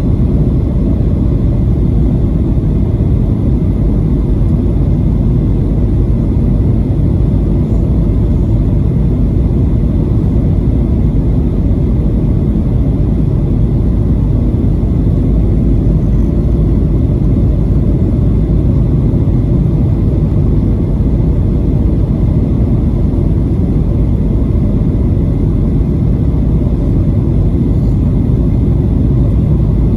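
Steady cabin noise inside a Boeing 737-900ER on approach to land: a deep, even rumble of its CFM56-7B engines and of air rushing past the fuselage and extended flaps, with a few faint steady tones above it.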